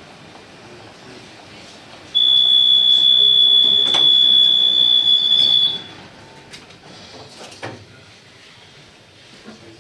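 Tatra T6A5 tram's door-closing warning tone: one steady high-pitched beep, starting about two seconds in and lasting about three and a half seconds, over the faint rumble and clicks of the tram's interior.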